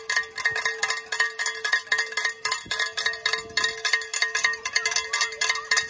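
A handheld cowbell shaken fast by a spectator, clanging at about five strikes a second with one steady ringing pitch, then stopping just after the end.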